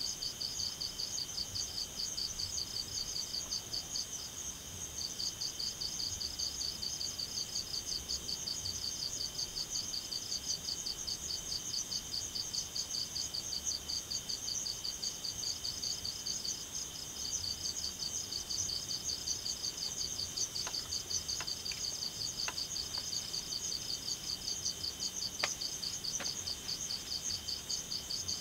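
Night insects chorusing: a steady high-pitched shrill with a fast pulsing trill over it, which pauses briefly about four seconds in and again around seventeen seconds. A few faint ticks come near the end.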